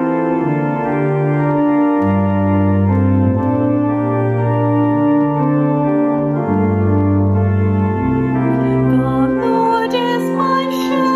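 Organ playing slow, sustained chords with a moving bass line, as a hymn introduction or interlude. Near the end a solo voice with vibrato begins to sing over it.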